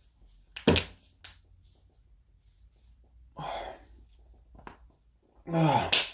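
A man's breathing and movement: a thump about a second in, a breath out about halfway, and a short voiced sigh falling in pitch near the end.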